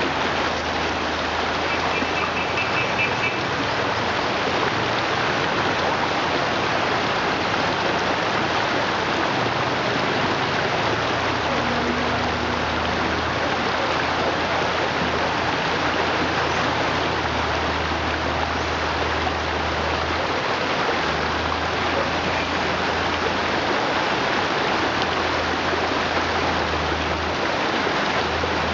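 Shallow rocky river rushing and splashing over stones, a steady, even noise of running water.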